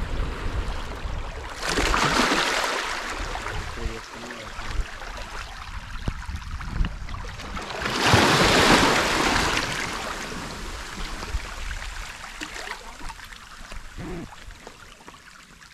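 Small sea waves washing in over rocks and pebbles at the shoreline, with two larger washes, one about two seconds in and the louder about eight seconds in, each fading away as the water drains back.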